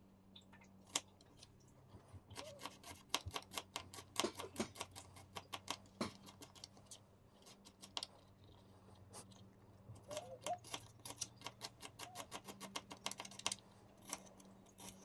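Kitchen knife finely chopping garlic cloves on a plastic cutting board: rapid runs of light taps, several a second, with a short pause about two-thirds of the way in.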